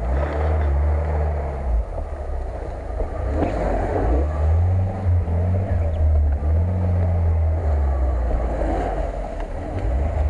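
Lada Niva's four-cylinder petrol engine revving up and down several times as the 4x4 crawls over a muddy, leaf-covered forest track, with tyres churning through the leaves.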